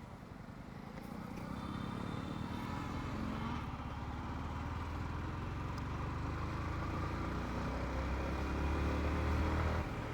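Wind rush and low rumble on the camera's external mic while riding a two-wheeler, with engine and road noise beneath. It grows louder over several seconds as the bike picks up speed, then drops off sharply near the end.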